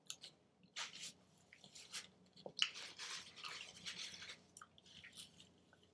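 Faint, irregular rustling and scraping noises of a person eating a burger, in a few short spells with a longer one in the middle.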